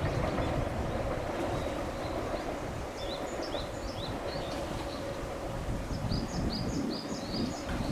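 Small birds chirping in quick runs of short high calls, twice, over a steady low rumble.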